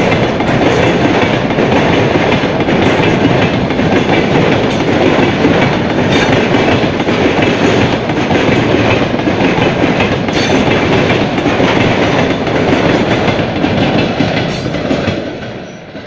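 Freight train wagons rolling past close by, wheels clattering over the rail joints in a steady loud rumble. The noise drops off sharply near the end.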